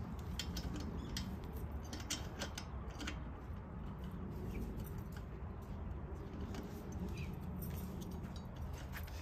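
Irregular light clicks and clinks of tire-changing tools being handled and worked, over a steady low rumble; the clicks are closest together in the first few seconds and thin out after that.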